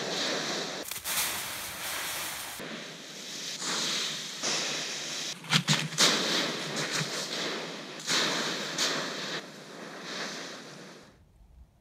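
Dry fallen leaves rustling and crunching as a dog leaps into and digs through a leaf pile, in several surges with sharp crackles. The sound stops shortly before the end.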